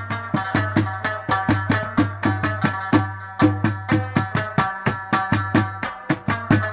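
Long-necked plucked lute played solo: a fast, even run of plucked notes, about six to seven a second, over a steady low hum.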